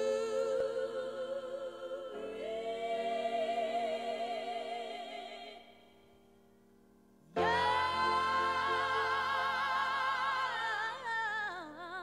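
Music of voices singing long held notes with vibrato, in choir-like harmony. It comes in two phrases with a short pause between them a little past the middle, and the second phrase slides down in pitch near the end.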